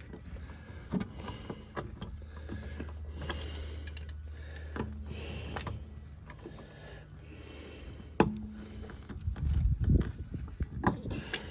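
Pliers clicking and scraping on a nail stuck in a van tire's tread as it is gripped and tugged, with scattered handling knocks, a sharp click about eight seconds in and a cluster of knocks near the end. A steady low hum sits underneath for a few seconds.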